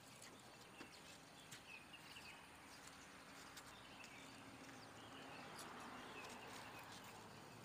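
Near silence: faint outdoor ambience with a few short, faint bird chirps.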